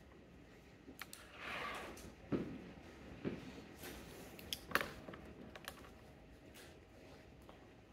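Faint, scattered clicks and a few soft knocks of a computer keyboard and mouse being worked, irregular rather than steady typing.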